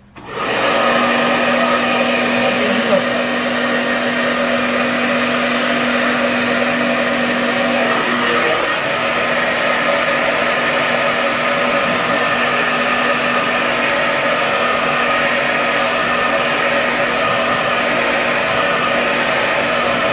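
Handheld hair dryer running steadily, blowing to set the spritz sprayed over a glued hair track. It switches on about half a second in, and a low hum in the first eight seconds or so drops out.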